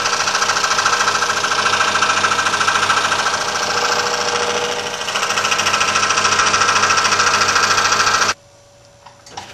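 Scroll saw running at slowed speed, its fine number 2 jeweler's blade cutting sheet metal sandwiched between two pieces of 1/8 inch plywood, with a fast, even chatter from the blade strokes. The sound cuts off abruptly near the end.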